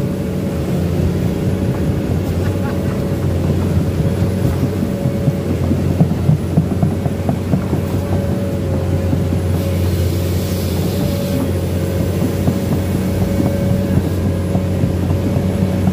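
Komatsu PC210 excavator's diesel engine running steadily, heard from inside the cab as the machine travels through floodwater. A brief hiss comes about ten seconds in.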